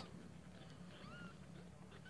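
Newborn kittens giving faint, high-pitched mews, the clearest about a second in.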